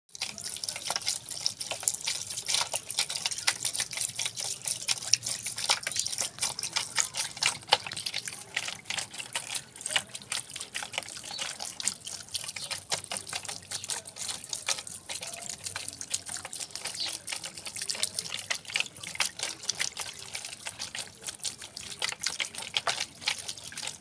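A small fountain's water jet falling back into its shallow basin, a steady, busy spatter of splashing drops.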